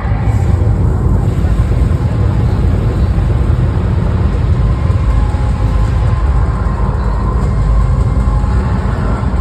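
Loud, steady, bass-heavy rumble from an arena sound system playing the soundtrack of a pregame projection show, filling the hall.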